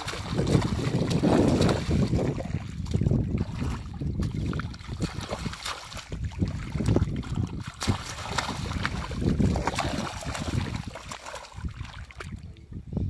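Hands splashing and churning shallow water over a muddy rice paddy while groping for a fish: irregular splashes and sloshing, heaviest in the first couple of seconds and easing off near the end.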